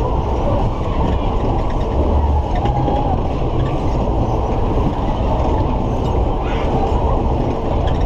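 Matterhorn fairground ride spinning at speed, heard from a rider's car: a steady rushing of wind over the microphone with the car clattering and rattling on its track.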